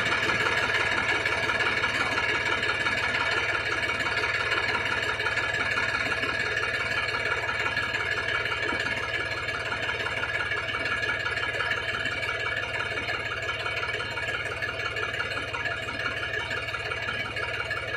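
An engine running steadily, slowly growing fainter.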